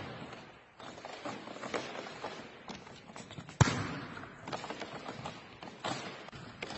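A volleyball slapped hard once, about three and a half seconds in: a sharp smack that echoes around the sports hall. Fainter taps and thuds of ball handling and steps on the court come before and after it.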